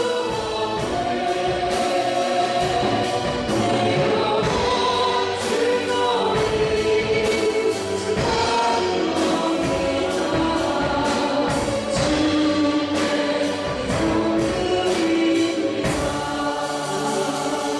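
A church praise team singing a worship song in unison, with instrumental accompaniment keeping a steady beat.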